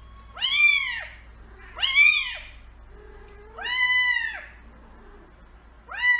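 Kitten meowing four times, a second or two apart, each a high call that rises and then falls in pitch.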